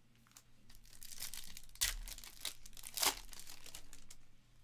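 Foil trading-card pack crinkling and being torn open by hand, with two sharper rips about two and three seconds in.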